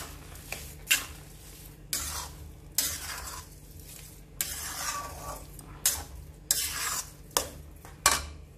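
Spatula scraping and stirring grated carrots and sugar in an iron kadhai, about one sharp scrape a second over a steady sizzle, as the sugar melts into the cooking halwa.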